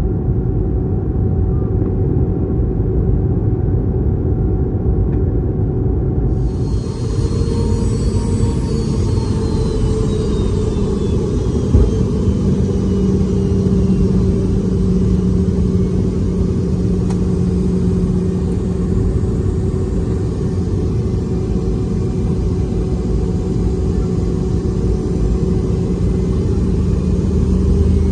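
Rumble of a Boeing 717-200 cabin beside its rear-mounted Rolls-Royce BR715 turbofan engines. About six seconds in, a high turbine whine comes in and slowly falls in pitch, and a single thump is heard about halfway through.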